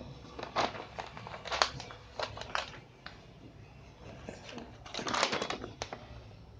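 Loose sheets of paper rustling and crinkling as they are handled and leafed through: short scattered rustles, busier for about a second around five seconds in.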